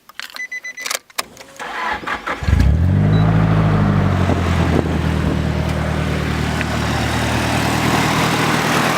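A few short electronic beeps, then the Nissan S15's SR20 four-cylinder engine cranks briefly and catches about two and a half seconds in. It flares in revs and settles into a steady idle through a new turbo dump pipe: a cold start after two months unused.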